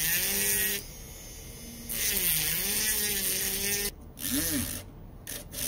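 Handheld rotary tool with an abrasive cut-off disc grinding the steel jaws of pliers. A high hiss of disc on metal runs over the motor's steady whine, which dips in pitch as the disc bites. The grinding comes in two spells, about one and two seconds long, with a short lift between, then the motor's pitch swings up and down in brief spurts.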